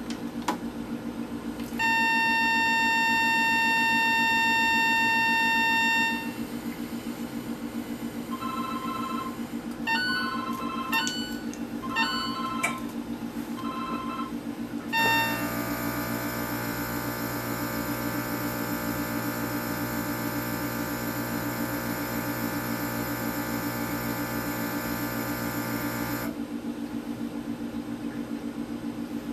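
Intoxilyzer 5000 breath-alcohol tester: a loud steady tone for about four seconds, then a run of short beeps that change pitch, then a steady buzzing hum for about eleven seconds while it runs its air blank. A steady low hum runs underneath throughout.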